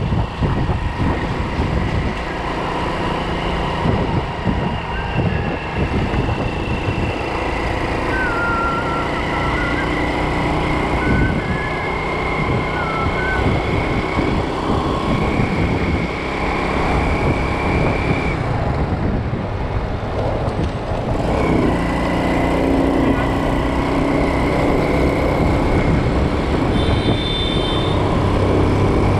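Motor scooter riding through city traffic: its engine running steadily under continuous road noise, with other vehicles passing.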